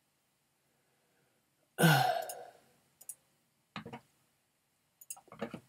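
Silence, then about two seconds in a man sighs, a voiced out-breath that starts loud and trails off within about a second. A few brief, faint clicks and breath sounds follow.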